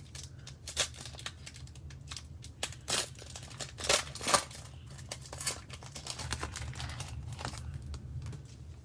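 A plastic trading-card pack wrapper being torn open and crinkled by hand: a run of sharp crackles, loudest about four seconds in.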